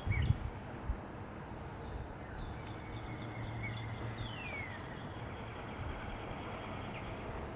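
Small birds chirping now and then, with one clear downward-sliding whistle about four seconds in, over a steady low rumble and a few low thumps of wind on the microphone at the start.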